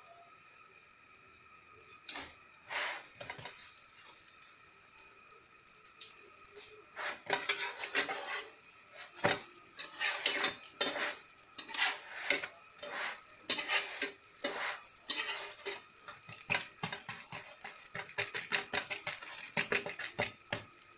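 Metal slotted spatula scraping and tapping against a non-stick frying pan as it presses a stuffed flatbread, many short strokes several times a second from about two seconds in, over a faint steady sizzle of the bread cooking.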